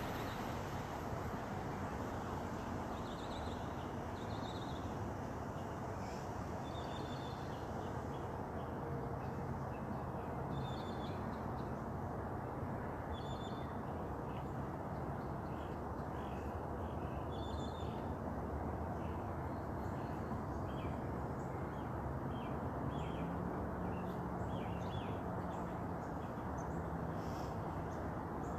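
Small birds chirping in short, scattered calls over the steady noise of distant highway traffic.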